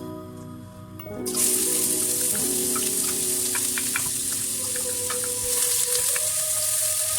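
Background music, and about a second in, food starts sizzling in a hot pan: a steady frying hiss with small crackles through it.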